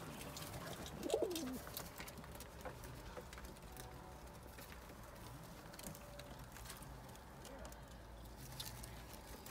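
Domestic pigeons cooing faintly, with one louder call about a second in.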